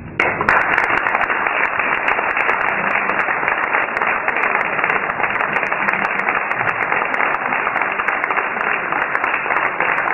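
An audience applauding, the clapping breaking out all at once and keeping up evenly and loudly.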